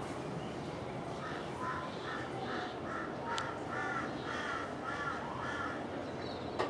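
A crow cawing repeatedly, about ten short caws at a little over two a second, starting about a second in, over a steady background hiss.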